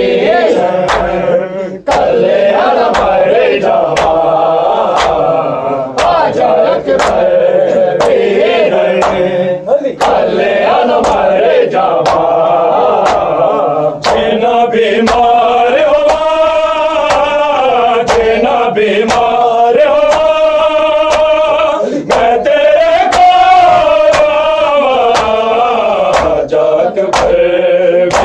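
Male voices chanting a Punjabi noha (Shia lament), held sung lines with others joining in. Under it runs a steady beat of sharp slaps about once a second, typical of matam (chest-beating) kept in time with the noha.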